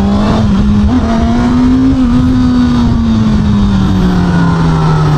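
Honda CB500SF's four-cylinder engine pulling hard in sport mode just after an upshift, its pitch climbing for about two seconds and then slowly falling.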